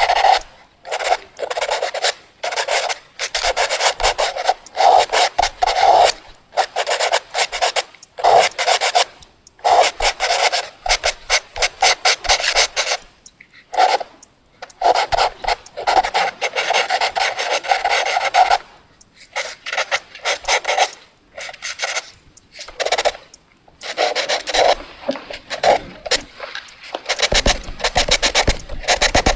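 Fast drawing on paper: a drawing tool scratching and rubbing across the sheet in quick runs of rapid strokes, broken by short pauses. A few heavier, deeper strokes come near the end.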